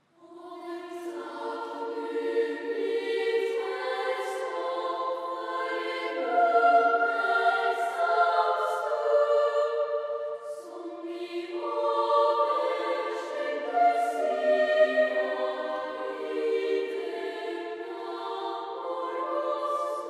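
A children's choir in Lucia robes singing together in several voices, starting suddenly out of silence, with crisp 's' sounds standing out above the held notes.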